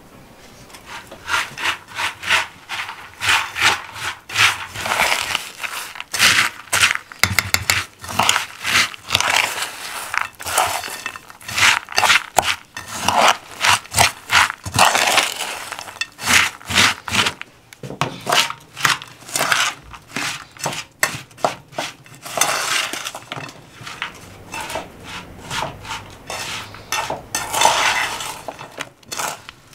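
Spoon stirring and scraping in a metal bowl, mixing chopped nuts coated in honey: a dense run of irregular scrapes and clinks of the spoon against the bowl.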